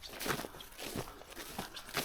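Footsteps walking: a run of short, irregular steps, a few each second.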